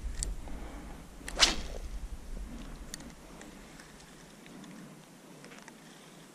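A single quick swish of a fishing rod being cast, about a second and a half in, followed by a few faint ticks.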